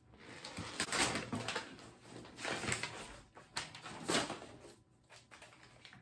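Gift wrapping paper rustling and tearing by hand in a string of irregular noisy bursts as a box is unwrapped, going quiet for the last second or so.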